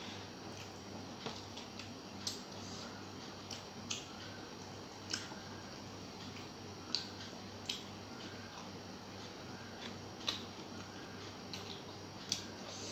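A person eating rice and fish curry by hand: soft mixing and chewing noises with a short, sharp wet click every second or two, over a low steady hum.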